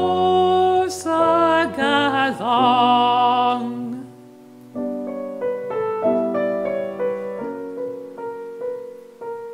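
A man sings the closing line of a German art song with vibrato over grand piano accompaniment, his voice stopping about four seconds in. The piano then plays a short closing passage of single notes and chords, ending on a held chord that rings out near the end.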